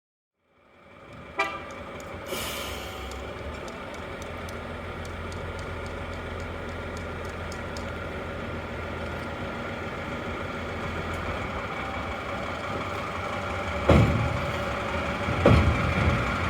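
Diesel railcar running steadily, with a short hiss about two seconds in and two heavy knocks near the end.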